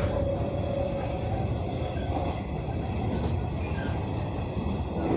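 Hanshin 9300 series electric train running along the line, heard from inside the leading car: a steady rumble of wheels on rail, with a faint whine in the first second.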